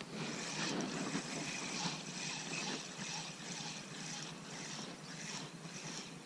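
Spinning reel being cranked to retrieve a lure: a soft, rhythmic whirring.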